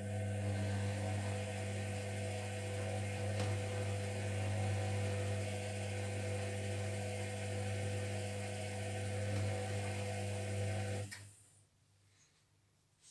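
Zerowatt/Hoover Performa 1000 HZ1042 washing machine's motor turning the drum during the wash phase: a steady hum with a higher whine that runs for about twelve seconds, then stops about 11 seconds in.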